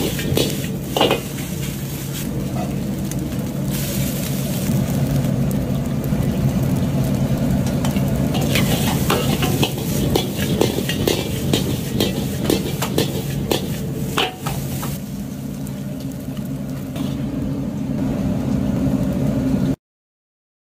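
Egg fried rice sizzling in a wok while a metal ladle stirs and tosses it, scraping and clinking against the pan, over a steady low hum. The sound stops abruptly near the end.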